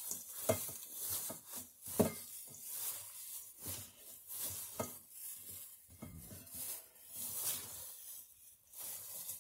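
Shredded cabbage being tossed and mixed with salt and grated carrot by a hand in a thin plastic glove in a stainless steel bowl, for sauerkraut: irregular rustling, crunching strokes.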